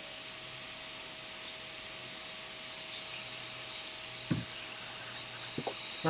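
Steady hiss with a faint high whine from running workbench equipment, and two light taps, about four and five and a half seconds in.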